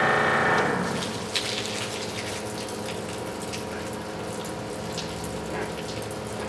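A pump on a wildland fire engine runs with a steady whine, then winds down and stops about a second in. Water keeps running and a low hum goes on, with a few light clicks.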